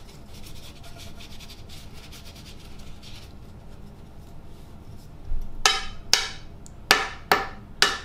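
Paper towel rubbing over the black chimney piece of a Baratza Sette 270 coffee grinder. From about five and a half seconds in, the part is tapped on a stone countertop about five times in sharp knocks, to shake loose the coffee grounds.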